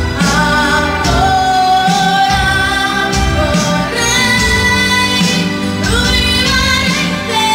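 A boy singing an Italian song into a handheld microphone over a backing track, amplified through PA speakers, holding long notes.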